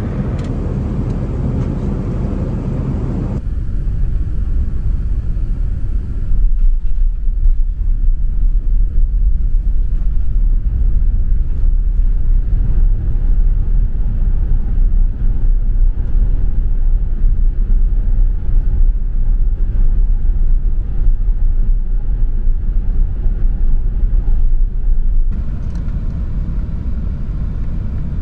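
Airbus A380 cabin noise on approach to landing: a steady low rumble of airflow and engines. It gets louder and deeper about six seconds in, then turns brighter and hissier near the end.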